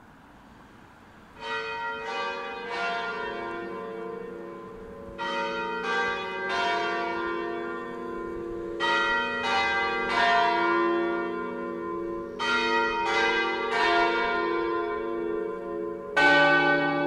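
Church bells ringing: three bells struck one after another, with the three-stroke pattern repeating about every three and a half seconds and each stroke ringing on into the next. The ringing starts about a second and a half in.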